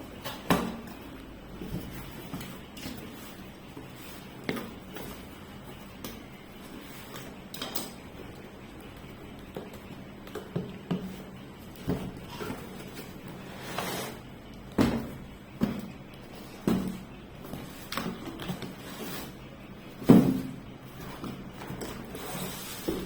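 Scattered knocks, clunks and light clatter of things being handled and set down, about a dozen at uneven intervals, the loudest about twenty seconds in.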